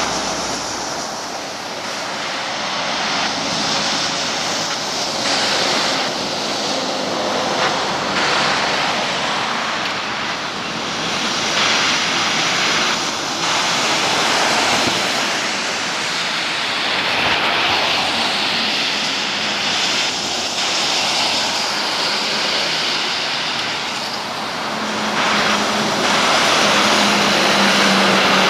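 Articulated lorries passing on a wet road, their tyres hissing through the spray, swelling and fading as each truck goes by. A low engine hum joins in near the end as another truck passes close.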